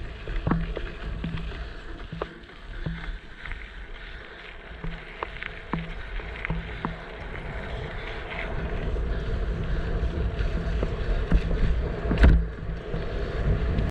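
Downhill mountain bike being ridden: steady tyre rumble and wind on the microphone, with many small rattles and knocks from the bike and a loud thump about twelve seconds in.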